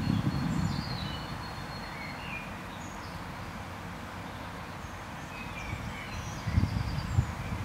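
Outdoor ambience of small birds chirping in short, scattered calls over a steady hiss, with low rumbles at the start and again about six and a half seconds in.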